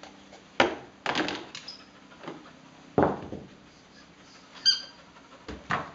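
Toys knocking and thunking against a plastic toy bin as they are handled, with several separate knocks and one short high squeak about three-quarters of the way through.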